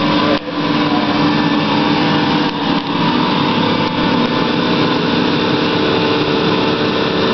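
Carpet-extraction (steam cleaning) machine running steadily, its vacuum pulling through the hose and the wand as the wand head is worked over the carpet, with a brief dip in level just after the start.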